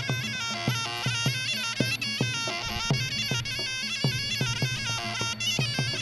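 Traditional Muay Thai ring music (sarama): a reedy pi oboe playing a stepping melody over steady klong khaek drum strokes, about three a second.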